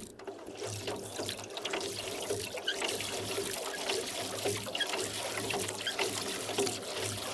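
Oars working a rowboat through lake water, with water trickling and dripping off the blades in a steady, continuous splashing.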